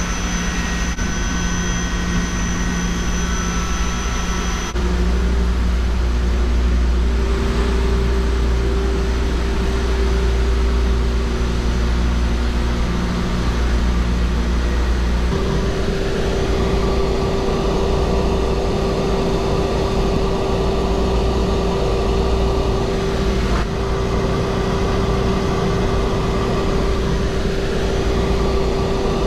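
Cruise ship engine-room machinery running: a loud, steady low rumble with several steady whining tones. The mix changes suddenly about 5 seconds in and again about 15 seconds in, where a steady mid-pitched whine comes up.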